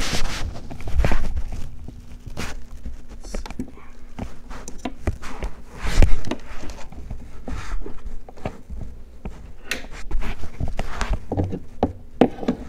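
Scattered knocks, taps and rustling from hands handling the choke actuator cable and plastic parts in the engine bay of a portable generator, with one louder knock about six seconds in and a run of taps near the end.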